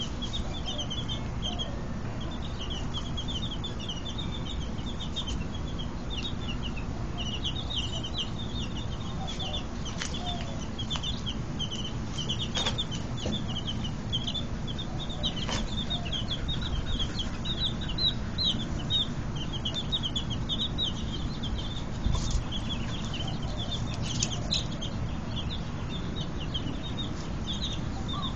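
A brood of baby chicks peeping continuously: a dense stream of short, high-pitched cheeps, several at a time, with a few soft clicks among them.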